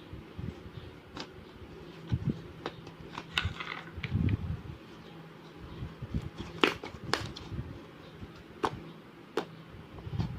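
Slime being worked by hand: scattered sharp, sticky clicks and pops with a few soft low squelches, over a steady low hum.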